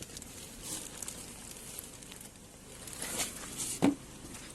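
A person moving about, with light rustling and shuffling steps, and a few soft knocks, the sharpest one about four seconds in.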